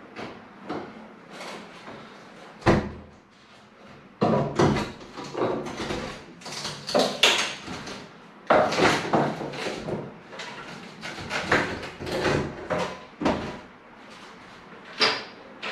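Irregular knocks, creaks and clattering as old glazed units are prised and knocked out of a rotten wooden bay window frame with a crowbar and chisel. The hardest single knock comes a little under 3 seconds in.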